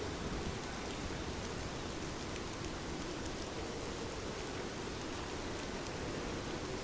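Steady water noise: an even, unbroken rush with scattered light ticks.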